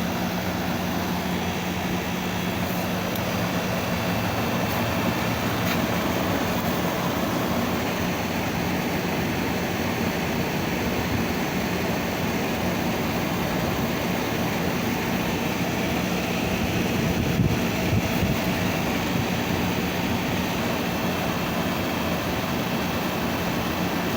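Air conditioner running steadily on its newly replaced compressor, with a constant hum under the whoosh of its fan, while it is being charged with refrigerant. One brief knock about two-thirds of the way through.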